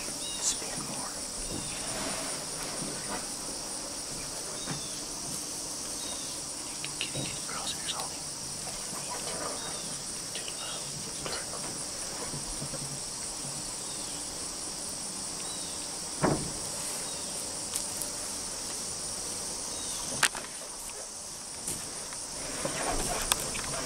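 Steady high-pitched chorus of insects chirping, with scattered soft clicks and rustles and a sharper knock about 16 seconds in and again about 20 seconds in.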